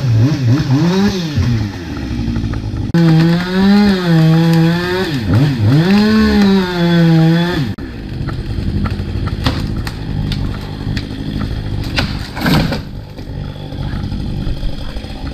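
Chainsaw running at high revs in long bursts, its pitch rising, falling and sagging briefly before recovering, then dropping to a lower, steadier running note about eight seconds in, with one short rev near the end.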